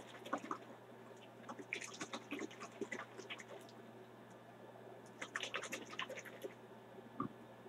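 Liquid sloshing and rattling in a small capped plastic bottle shaken by hand to mix the solution, in two bouts of quick rattling. A single soft knock comes near the end.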